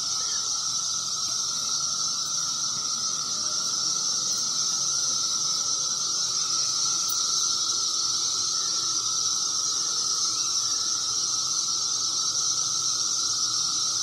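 Chorus of 17-year periodical cicadas: a steady, shrill drone with a lower steady buzz beneath it.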